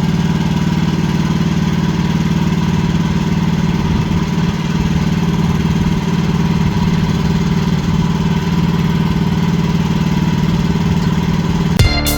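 Wood-Mizer LX55 portable sawmill's engine running steadily. Guitar-like music cuts in near the end.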